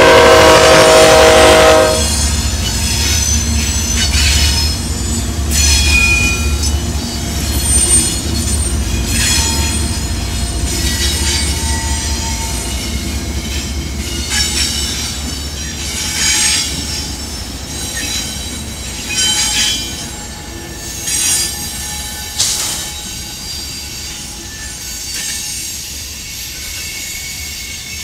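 A freight train's horn chord sounds and cuts off about two seconds in, over the low rumble of a consist of GE GEVO-engined diesel locomotives passing close by. Then wheels squeal on and off in high-pitched bursts as the train takes a sharp curve, and the rumble slowly eases as the freight cars roll by.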